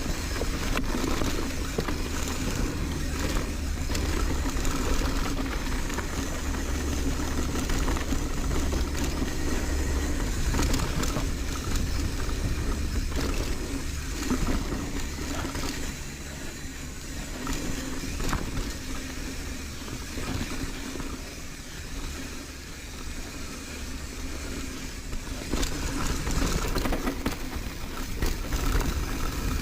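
Wind rushing over the camera microphone and the rattle of a Marin San Quentin mountain bike running fast down a dirt trail, with tyre noise and short knocks from bumps and the chain. It eases off for a while past the middle and picks up again near the end.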